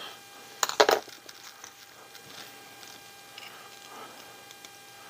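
Small metal tools and RC axle parts handled on a workbench: a brief clatter of sharp clicks about a second in, as pliers are picked up, then scattered faint clicks.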